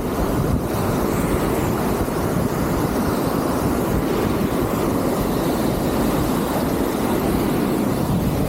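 Strong gale wind buffeting the microphone: a steady, loud rumbling noise with no pauses.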